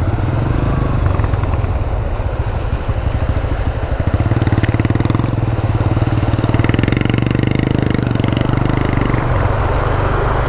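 Small motor scooter engine running steadily while riding, its pitch staying fairly even throughout.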